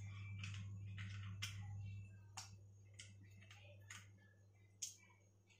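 Whole spices heating in oil in an aluminium kadai, the first few faint, sparse pops and crackles as the tempering (vaghar) starts to come up. A low steady hum underneath fades out about two seconds in.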